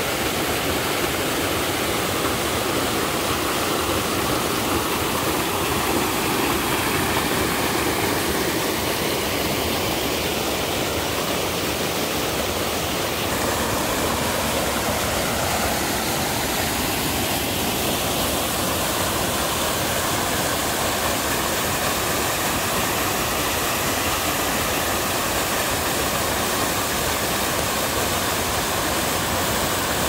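Small five-tier waterfall in a mountain stream, water rushing steadily over and between boulders with an even, unbroken sound.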